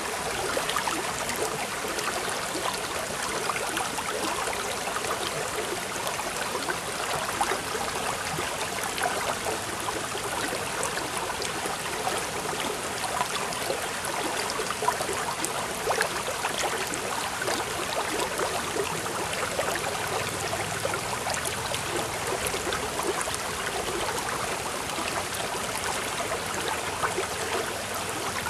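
Steady running water, babbling without a break.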